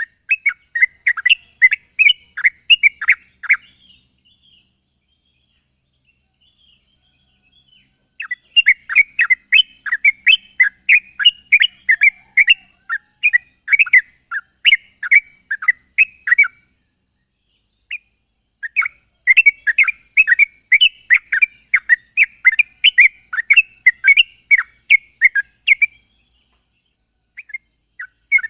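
Yellow-vented bulbul calling in rapid runs of short bubbly chirps, about three a second. Three long runs are broken by pauses of a few seconds.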